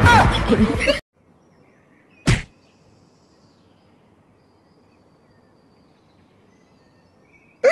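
A single sharp impact, a short thunk or smack, about two seconds in, against faint background hiss. Before it, music and a voice cut off abruptly about a second in.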